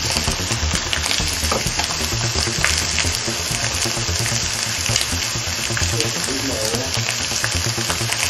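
Beef rib steak and sliced vegetables sizzling on an electric contact grill: a steady frying hiss dotted with small crackles.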